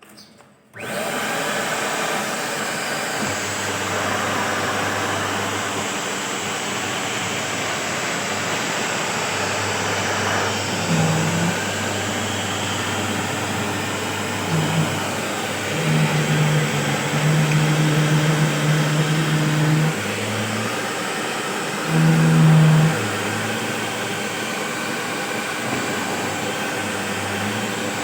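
Sweeper machine running under test: a steady rushing noise with a low motor hum. Several times the hum steps up into a louder, higher tone, longest in the middle of the run.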